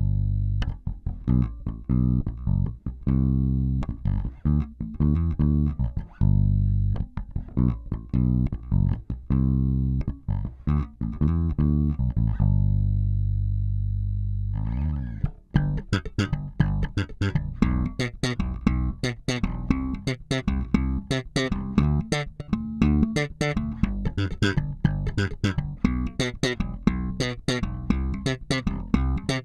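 Warwick Corvette $$ electric bass played fingerstyle on its single-coil pickup setting, with both coil switches in the middle position and the tone controls flat. A melodic line with a long held note gives way about halfway through to a fast, busy run of plucked notes.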